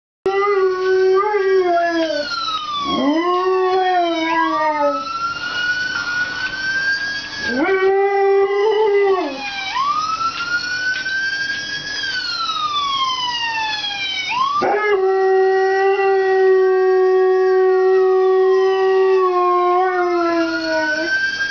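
Husky-type dogs howling in long drawn-out notes, two voices overlapping: a lower one held fairly steady and a higher one gliding up and down.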